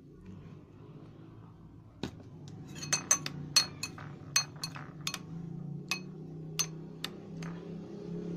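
Metal spoon stirring in a glass bowl, clinking against the glass about a dozen times at an uneven pace, starting about two seconds in. A steady low hum runs underneath.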